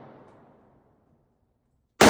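The dying echo of a gunshot fading away over about the first second, then silence.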